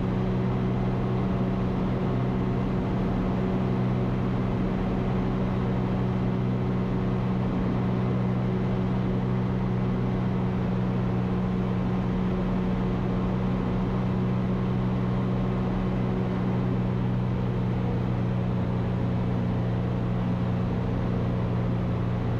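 Ikarus C42 light aircraft's engine and propeller running steadily at climb power, heard from inside the cockpit as a constant, even drone that does not change in pitch.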